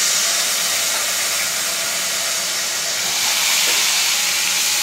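Ginger-garlic and spice paste sizzling loudly in hot oil in a kadhai as it fries: a steady, spitting hiss.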